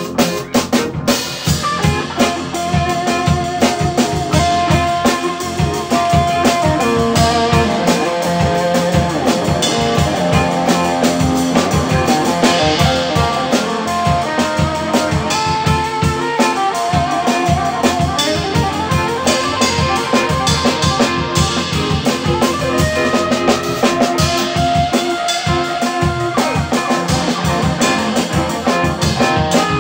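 Improvised instrumental music played by a three-piece group: steady, busy drumming under a sustained, wavering lead melody line, in a loose psychedelic-rock jam.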